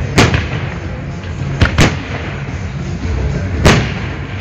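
Fireworks shells bursting in sharp bangs, four of them: one just after the start, two in quick succession about halfway, and one near the end, over music playing underneath.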